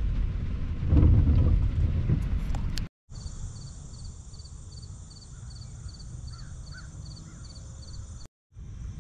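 Outdoor summer ambience: a low rumble for the first three seconds, then, after a brief cut, a steady high insect chorus with a pulsing chirp about two or three times a second and a few faint bird calls.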